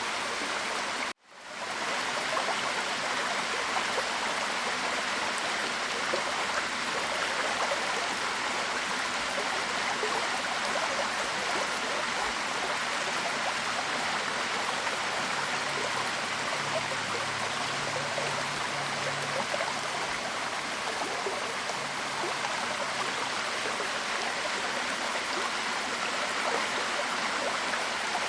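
Waterfall: a steady rush of falling water. About a second in, the sound cuts out abruptly and fades back up within a second.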